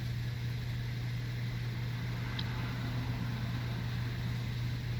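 Car engine idling steadily at about 800 RPM with no misfire, its idle settled after the throttle body was cleaned and reset.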